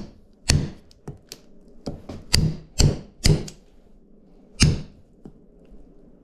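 Repeated sharp whacks of a tool striking a whole lamb carcass to break it down and flatten it for butterflying: about seven blows at uneven spacing, the last one about four and a half seconds in.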